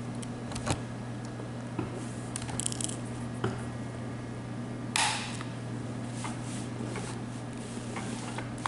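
Scattered light clicks and ticks of diamond-painting work, with a short scrape about five seconds in, over a steady low hum.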